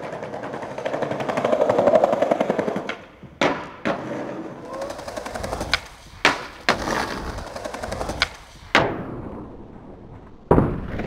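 Skateboard wheels rolling over paving with a fast rattle, then a series of sharp clacks from the board: tail pops, hits on the ledge and landings.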